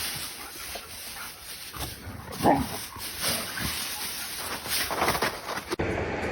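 A dog giving a short falling yelp or whine about two and a half seconds in, with a few smaller sounds around it. Near the end the sound cuts abruptly to a steady rushing noise.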